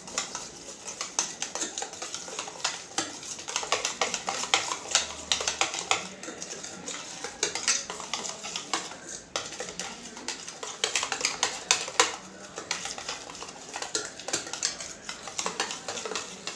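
Wire whisk beating a thick yogurt-and-cream marinade in a stainless steel bowl: rapid, irregular clicks and scrapes of the wire against the metal, with a wet slapping of the mixture.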